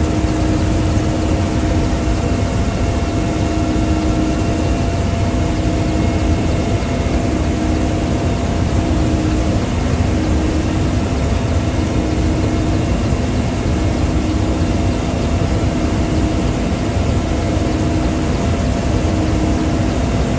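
Helicopter cabin noise in flight: a loud, steady drone of engine and rotor with a constant whine riding over it.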